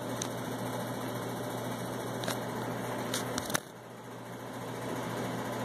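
Muted sharp cracks of a Jennings J-22 .22 pocket pistol firing, held down by the recording, over a steady low hum. The strongest comes about three and a half seconds in, and the background briefly dips after it.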